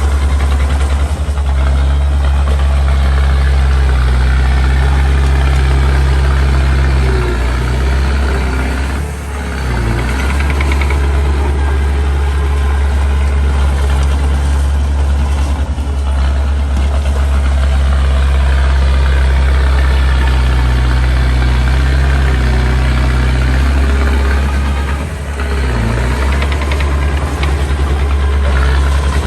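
Small bulldozer's diesel engine running steadily under work, its note dipping briefly and recovering twice.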